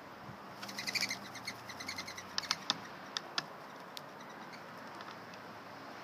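Mourning doves flying by, their wings making a rapid, pulsing twittering whistle for about a second and a half, followed by a few sharp taps.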